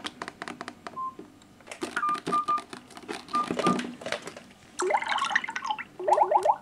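Mobile phone being dialed: clicks of taps with short electronic beeps, then quick rising electronic tones and a fast run of rising chirps near the end that cut off sharply.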